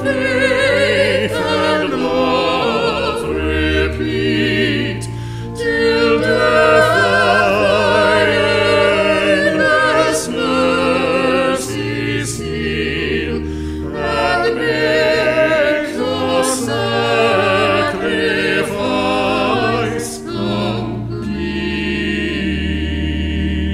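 Choir singing with vibrato over sustained low accompaniment notes, closing on a long held chord near the end.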